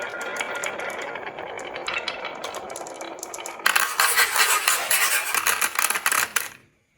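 Marbles rolling and clicking down a wooden HABA marble-run slope. About three and a half seconds in, a much louder, dense clattering of marbles starts, then cuts off abruptly near the end.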